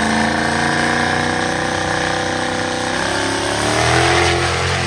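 Diesel pickup drag truck's engine held at high revs during a burnout, the tyres spinning. About three seconds in the engine pitch climbs as the truck moves off, then the sound begins to fade.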